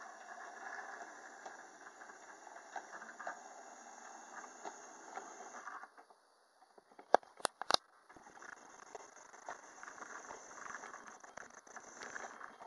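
Model train running along the track: a steady light rattle of wheels and motor. It drops out about six seconds in, three sharp clicks follow, and then the rattle resumes.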